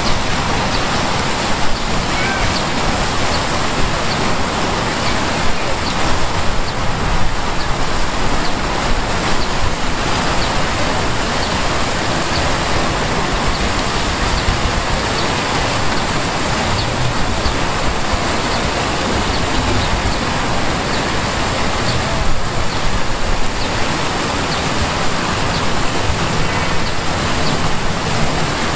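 Water from a two-tiered fountain's many jets splashing steadily into its basin, a constant rushing of falling water.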